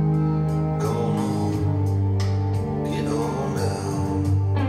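Recorded music with long held chords played back over a hi-fi system: an Arcam FMJ CD17 CD player through an Audiolab 8200A integrated amplifier into AR 308 HO speakers.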